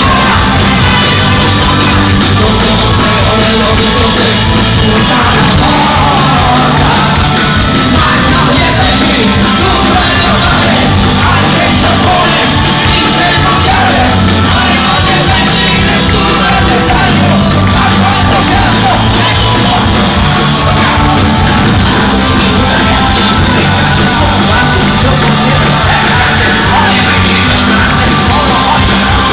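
Live rock band playing loud, with shouted and sung vocals, recorded from the audience in a large hall.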